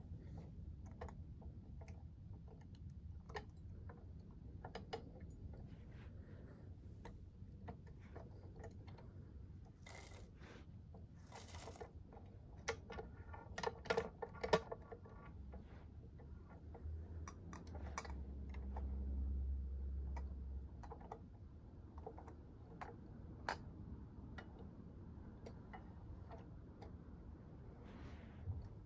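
Faint clicks, taps and small rattles of a First Gear scale model of a Mack MR front loader garbage truck as its loader arms and forks are moved by hand, lifting a toy dumpster. Around the middle comes a cluster of louder clicks and rattles, followed by a low rumble lasting a few seconds.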